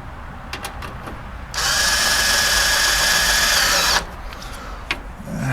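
Power drill driving a screw home, running steadily with a whine for about two and a half seconds before stopping, with a few light clicks before and after.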